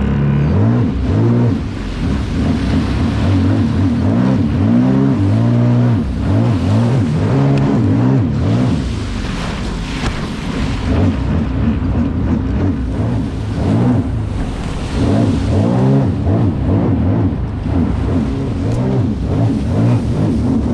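Sea-Doo Spark Trixx jet ski's three-cylinder Rotax engine running on the water, its pitch rising and falling repeatedly as the throttle is worked on and off.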